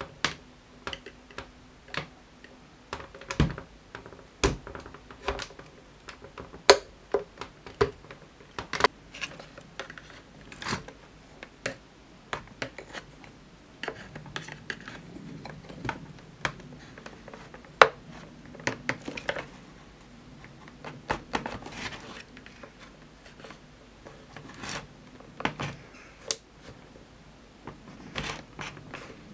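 A blunt metal pry tool prising at the plastic coarse filter of a Dyson DC62 (V6) cyclone assembly: irregular sharp clicks and ticks of metal on plastic, with stretches of scraping as the tool is worked along the seam.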